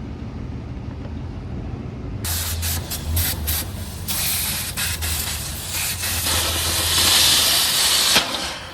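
Loud hiss of pressure escaping from the truck's air or coolant system, starting abruptly about two seconds in with sputtering spits, building, then cutting off sharply near the end. The truck's engine runs underneath.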